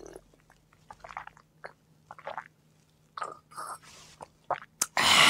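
Soft mouth sounds of a man drinking and chewing: a shot of soju swallowed, then scattered small chewing and smacking noises. A loud breathy exhale comes near the end.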